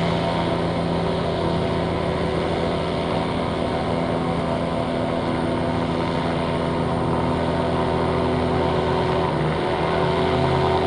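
Steady engine drone made of several held tones, its pitch shifting slightly near the end.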